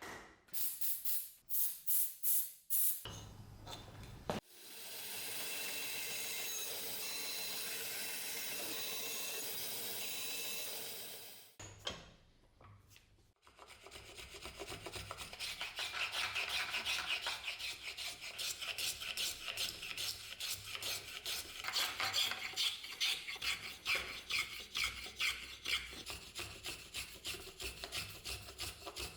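Hand filing: rapid back-and-forth rasping strokes, about three or four a second. A steady hiss runs for several seconds near the start, before a short pause.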